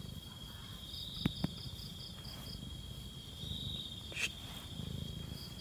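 A cat purring with a low, steady rumble while being stroked, a sign that it is content. Crickets chirr steadily behind it in a rapid pulsing, and two sharp clicks come a little over a second in.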